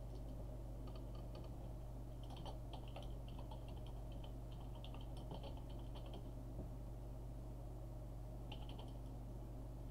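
Typing on a computer keyboard: bursts of key clicks with a pause of about two seconds in the second half, over a steady low hum.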